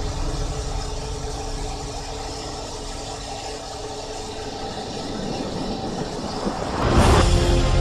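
Foam generator machinery (air compressor and water pump) running with a steady mechanical hum. Near the end a rising sweep leads into a louder sound.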